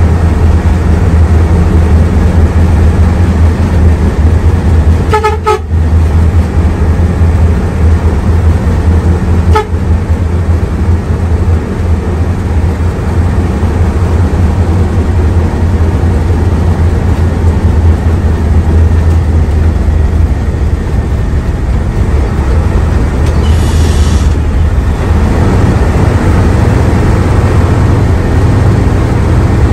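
Diesel engine of a Hino AK3HR Ranger bus running with a steady low drone. A horn honks briefly twice, about five and ten seconds in, and a short hiss comes later.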